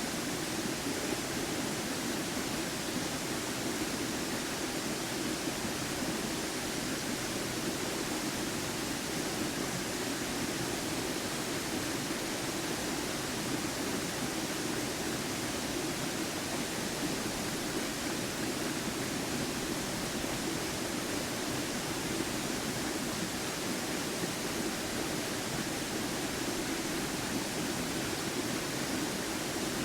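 Waterfall rushing: a steady, unbroken roar of falling water with a strong low band to it.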